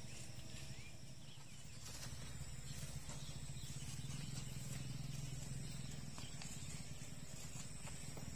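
Outdoor ambience: a steady low rumble with a faint, steady high-pitched hiss above it and a few faint ticks.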